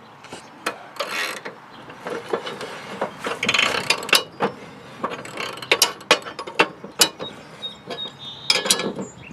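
Steel box-end wrench working the cutting-blade bolt on a John Deere LA100 mower deck: irregular metal clicks and short scrapes as the wrench is swung and reset on the bolt head.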